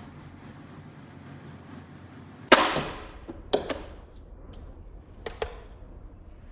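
Toy gun firing: three sharp shots, the first about two and a half seconds in, then one a second later and one near the end, with a few fainter clicks between them.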